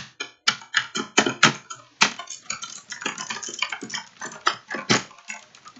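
A rapid, irregular run of sharp clicks and taps, several a second, that stops near the end.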